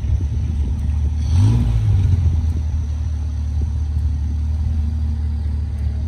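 Thai long-tail boat engine running with a steady low drone, briefly revving up about a second and a half in.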